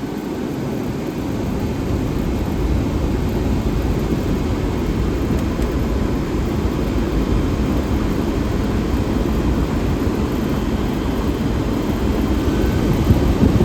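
Two vintage window air conditioners, a 1977 GE Super Thrust and a 1978 Comfort Air Quiet Master, running together: a loud, steady rush of blower air with a low running hum, both units cooling hard.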